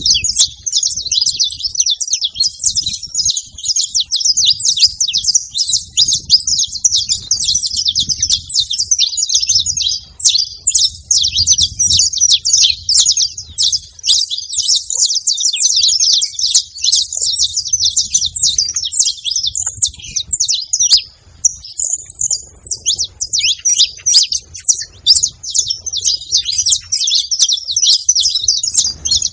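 A flock of wild saffron finches chirping together, many short high calls overlapping in a dense, continuous chatter.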